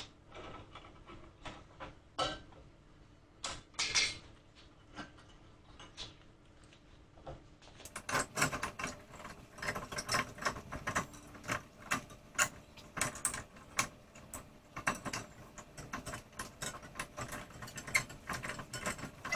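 Hand ratchet clicking rapidly as it turns a bolt on a front brake caliper. About eight seconds in, the clicking starts and goes on in quick runs. Before that there are only a few scattered knocks of tools being handled.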